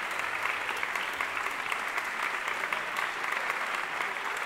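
Large audience applauding: a dense, steady stream of many hands clapping.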